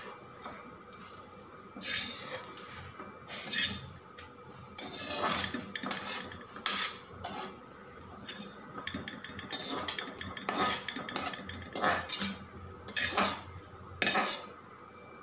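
Perforated metal skimmer ladle scraping again and again against the bottom of a metal kadai as roasted fennel, cumin and poppy seeds are scooped out, done roasting.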